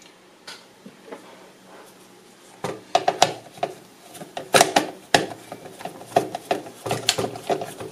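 Irregular sharp clicks and knocks of a screwdriver working a screw in a Ford Bronco's plastic instrument-cluster housing. They start about two and a half seconds in, after a quiet stretch.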